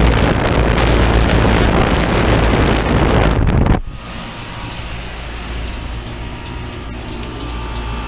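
2004 AirEase Concept 1000 heat pump's outdoor unit running in cooling mode. The condenser fan's air blows loudly across the microphone held over the top grille, then cuts off sharply about four seconds in, leaving the unit's steady hum.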